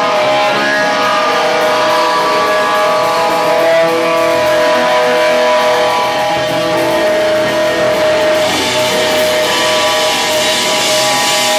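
Live rock band playing a song's instrumental intro: electric guitars sustaining long ringing notes over bass and drums. The sound gets brighter and fuller about eight seconds in.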